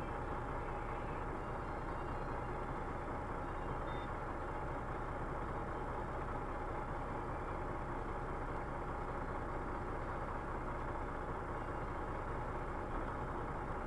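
Semi-truck's diesel engine idling steadily while the truck is stopped, heard from inside the cab, with a thin steady tone above the engine hum.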